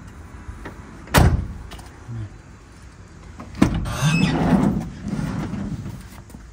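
A van's front cab door slams shut about a second in. Later the side sliding door's latch clunks and the door rolls open along its track, scraping for about a second and a half.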